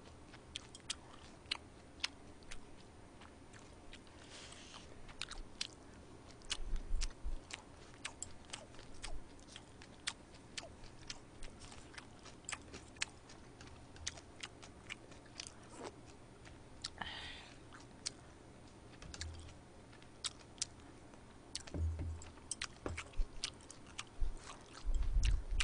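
Close-miked chewing: a woman eating with her mouth full, making many small wet mouth clicks and smacks, with a few soft low thumps.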